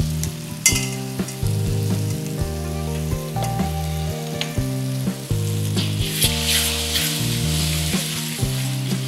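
Dodol batter of coconut milk and jaggery sizzling in hot ghee in a kadai as it is sieved in and stirred, with a sharp flare of sizzle about a second in and louder sizzling about six to seven seconds in. Soft background music with a slow, stepping bass line plays underneath.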